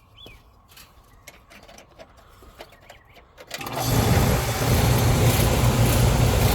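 A few faint clicks, then about three and a half seconds in, the 23-year-old Carrier air conditioner's outdoor unit starts up after its time delay and keeps running with a loud, steady low hum.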